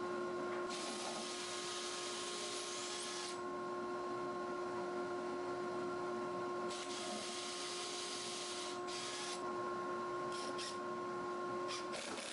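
Cordless drill running twice, each time for about two and a half seconds, boring pilot holes through plywood, over a steady hum. A few short clicks near the end.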